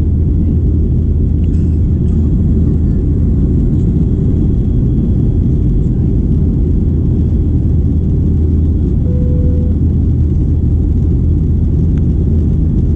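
Steady low rumble of a Boeing 737-800's passenger cabin in flight: the engines and the air rushing past the fuselage, heard from a window seat in the rear half of the cabin.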